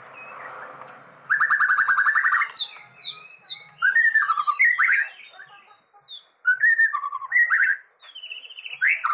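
White-rumped shama singing: a fast buzzy rattle, then a run of quick sweeping whistled notes and short phrases. The bird is recovering from hoarseness after several days of ginger treatment, and its voice now sounds fairly clear and strong.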